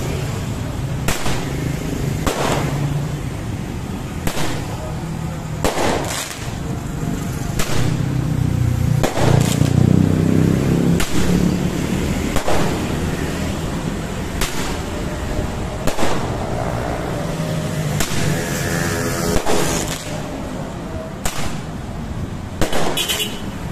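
New Year's fireworks bursting outdoors, with a sharp bang every second or two over a steady background din of crowd and traffic.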